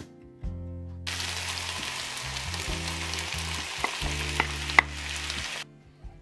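Chopped onions, tomatoes and bell peppers sizzling in a frying pan for about four and a half seconds. A few sharp clicks come in the second half, the loudest near the end, as diced avocado is tipped in from a plate. The sizzle then cuts off suddenly.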